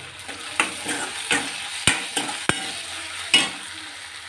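Chopped tomato and fried onions sizzling in oil in a metal kadai, stirred with a steel spoon that scrapes and knocks against the pan about six times.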